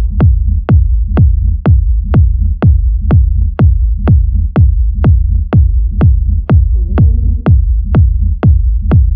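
Electronic dance track stripped down to a four-on-the-floor kick drum, about two beats a second, over a steady deep bass, with a faint melodic line coming in briefly past the middle.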